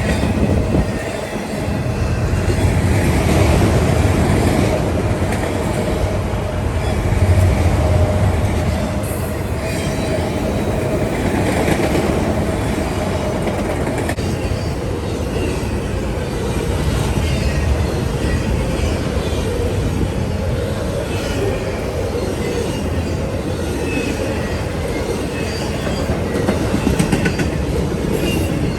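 A train rolling past at length, its wheels clicking over the rail joints, with a faint steady squeal in the first half.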